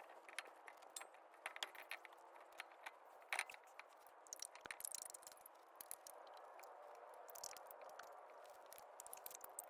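Near silence, with faint scattered clicks and light scrapes over a low hiss.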